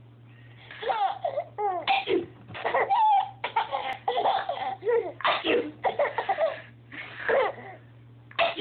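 A baby laughing in a string of short bursts with brief pauses between them.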